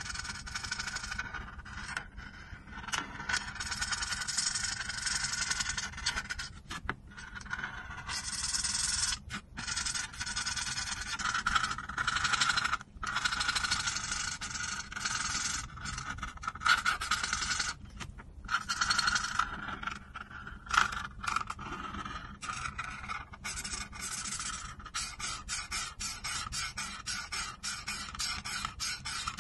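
Marker nib scratching across paper as it colours in, in strokes of a second or more with short pauses between them. The strokes turn quicker and shorter near the end.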